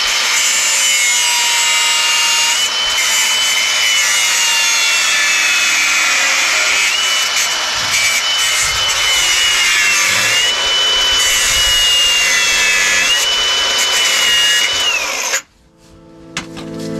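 Angle grinder cutting through hard-to-reach exhaust bolts under a car: a high motor whine over a grinding hiss. The whine sags each time the disc bites and recovers between cuts, then cuts off suddenly near the end.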